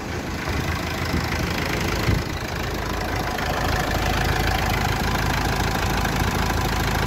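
Mitsubishi 4D56 2.5 DiD four-cylinder turbo-diesel idling steadily, nice and quiet and still, just after its balancer shaft pulley and oil pump were refitted. There is a single brief thump about two seconds in.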